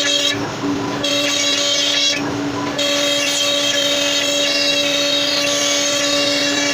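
CNC router running, a steady whine of several held tones over cutting noise, breaking off briefly twice in the first three seconds.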